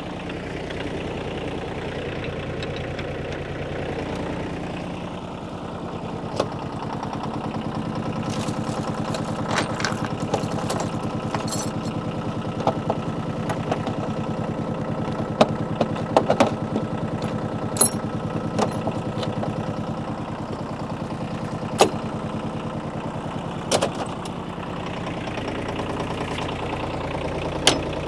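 New Holland tractor engine idling steadily, with scattered sharp metallic clanks and clicks as the backhoe's mount hardware and pins are worked into place.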